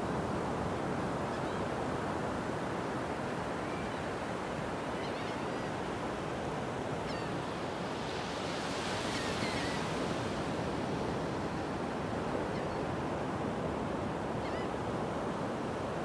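Ocean surf breaking and washing up a sandy beach, a steady rush of water that swells brighter for a couple of seconds around the middle. A few faint short bird calls come through now and then.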